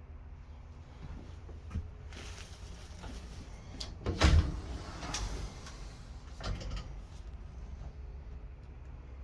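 A door in a travel trailer being opened and shut by hand: a small click, then a solid knock about four seconds in as it closes, and a lighter knock a couple of seconds later.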